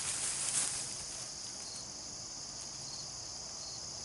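Steady high-pitched chorus of crickets, with a brief burst of noise in the first half second.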